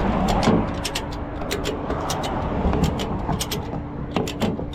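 Tow truck engine running with a steady hum while a tie-down ratchet is worked, giving a run of sharp irregular metallic clicks.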